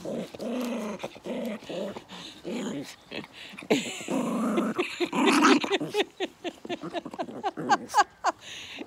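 Dogs growling and grumbling close to the microphone, with whines and short yips, as they jostle for cuddles; the growling is one dog's jealousy at the attention given to the others.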